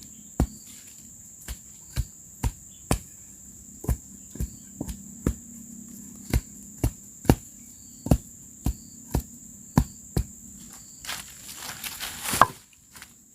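Repeated sharp blows of a tool on bamboo, about one to two a second at an uneven pace, with a louder, rustling strike near the end. A steady high insect drone runs underneath.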